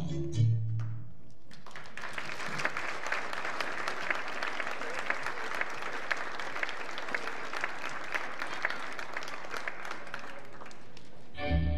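Music ends with a last note about a second in, then an audience claps for about nine seconds. The next piece of music starts just before the end.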